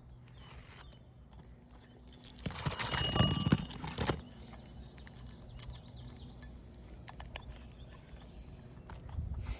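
Work on an asphalt shingle roof: a burst of scraping and crackling with clicks, about two and a half seconds in and lasting about a second and a half, then a softer rustle near the end.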